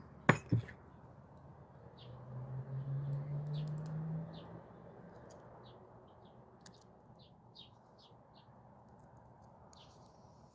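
Two sharp clicks of metal parts being handled just after the start, then a low steady hum for about two and a half seconds, with faint short bird chirps throughout.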